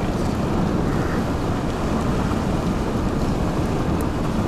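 Strong storm wind buffeting the microphone: a loud, steady, low rumbling rush.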